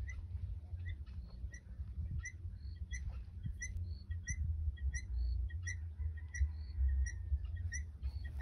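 Helmeted guineafowl calling: a short, high, two-part call repeated about twice a second, over a steady low rumble.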